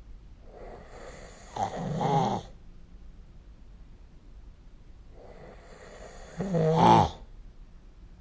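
A sleeping person snoring, two snores about five seconds apart. Each one starts soft and grows loud in its last half second or so, and the second is the louder.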